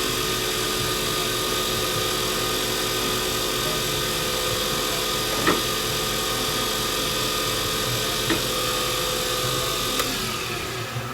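Wood lathe motor running steadily, spinning a pen blank during the boiled linseed oil finishing step, with a few faint clicks. About ten seconds in there is a click, and the lathe winds down as it is switched off.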